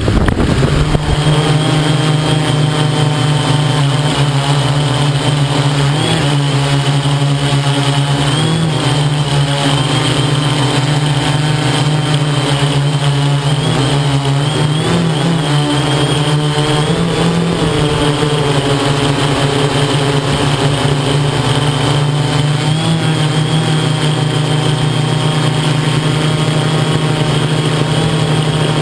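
XAircraft X650 V8 multirotor's electric motors and propellers humming steadily in flight, heard close up from its onboard camera. The pitch wavers slightly now and then as the throttle shifts.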